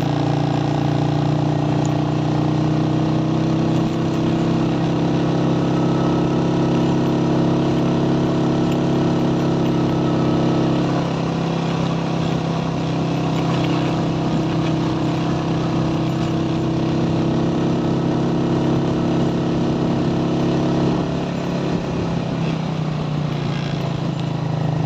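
Motorcycle engine running steadily while riding, its pitch shifting about eleven seconds in and again about twenty-one seconds in.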